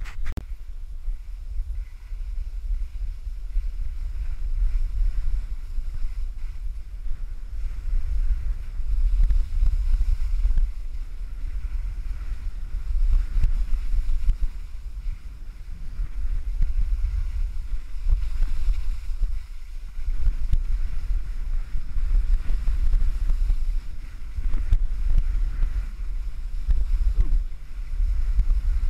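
Wind buffeting a GoPro camera's microphone as a skier runs downhill: a loud, low rumble that swells and eases every few seconds.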